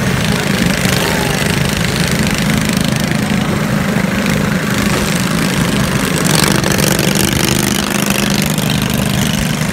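Engines of riding lawn mowers rigged for derby, running steadily with a constant low hum, a little louder about six seconds in.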